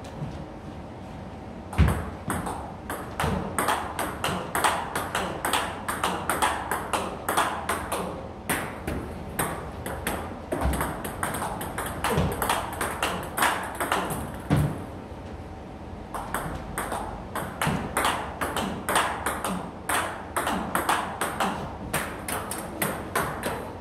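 Table tennis rally: the ball clicks sharply in quick succession off bats faced with Tibhar Hybrid MK rubber and off the table. The rally starts about two seconds in with a louder first hit, breaks off briefly a little past the middle, then a second rally runs almost to the end.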